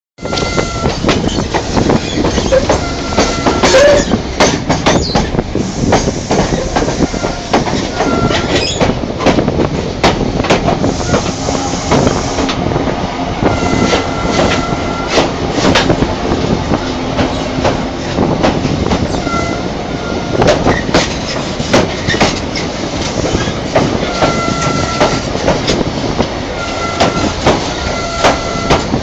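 Sleeper train running along the track, heard from inside the coach: a steady rumble with a rapid, irregular stream of clicks and knocks from the wheels over the rails, and brief high wheel squeals several times.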